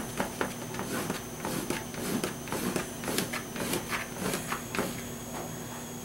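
Oil pastel scratching over a painting's surface in short, quick strokes, a few each second, to build up texture.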